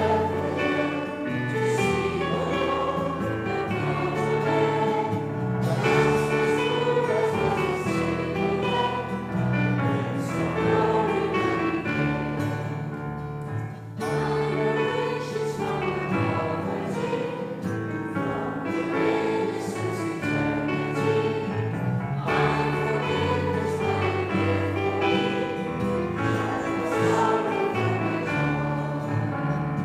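Music: several voices singing a worship song together over instrumental accompaniment, with a short pause between phrases about halfway through.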